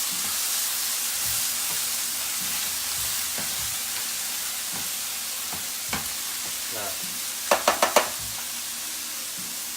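Chicken halves searing skin-side down in hot oil in a smoking pan: a steady, loud sizzle. Near the end come four quick sharp clicks.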